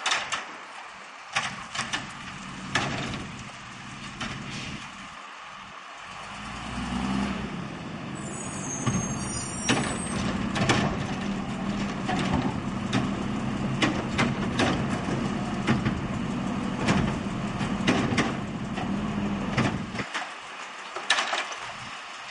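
Automated side-loader garbage truck: sharp bangs in the first few seconds as the arm shakes a cart out over the hopper and sets it down. Then the diesel engine revs up and runs steadily while the truck drives forward, its body clanking and rattling, until it quiets near the end.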